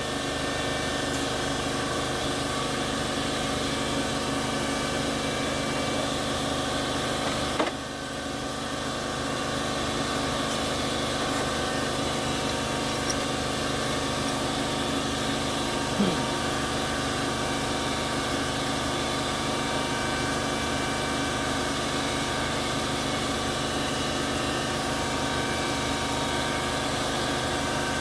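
Steady motor hum made up of several constant tones, broken by a click about eight seconds in and a short knock around sixteen seconds.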